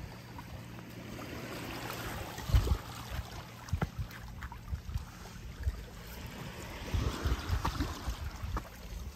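Small waves lapping and splashing against shore rocks, the wash swelling about two seconds in and again around seven seconds, with short low thumps mixed in.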